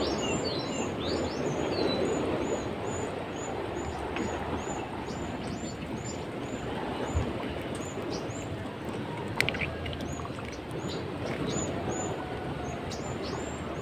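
A small bird chirping over and over, short high chirps about two a second, over a steady rushing noise of hands stirring in shallow water and mud. A couple of brief sharp clicks come in the second half.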